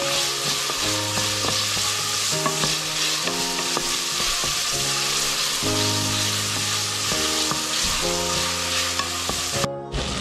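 Diced onion sizzling as it fries in a stainless steel saucepan, stirred with a wooden spatula that scrapes and taps on the pan bottom. The sizzle breaks off for a moment near the end.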